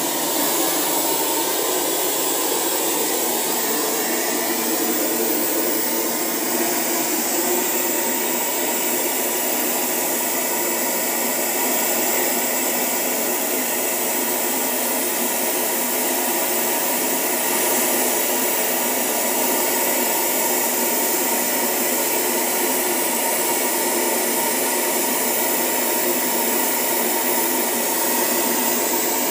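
Steady noise test signal played through a loudspeaker box to check its frequency response. It is a constant hiss, thin in the bass and unchanging throughout.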